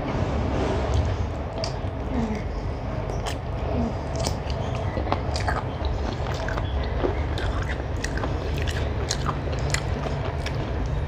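Close-miked chewing of a mouthful of rice and chicken curry, with many small, sharp, wet mouth clicks.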